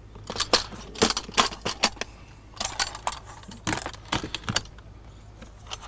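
Irregular light clicks and knocks of modular beehive kit parts being handled and set down.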